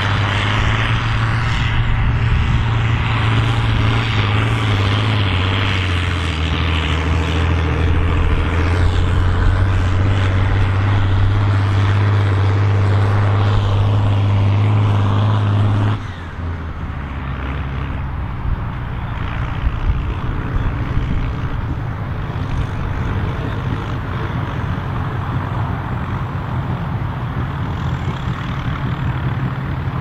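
John Deere 4440 tractor's turbocharged six-cylinder diesel engine running hard and steady under load while pulling a mouldboard plough. About halfway through the sound cuts to a quieter, more distant engine note.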